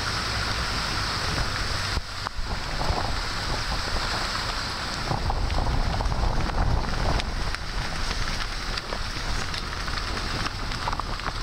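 Steady noise on the deck of a sport-fishing boat under way: wind buffeting the microphone over the running engine and water rushing along the hull.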